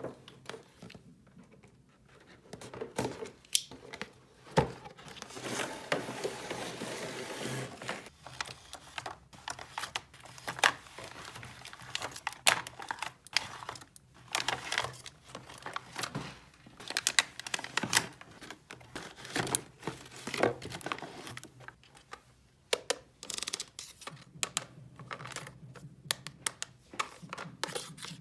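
Packaging crinkling and tearing, with a rustling stretch a few seconds in, amid many sharp clicks and taps of small toy pieces being handled.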